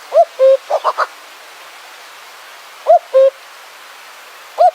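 A bird calling a repeated two-note hoot: a short rising note followed by a lower held note. It calls at the start and again about three seconds in, and the first note of a third call comes near the end. About a second in, three quick rising notes break in.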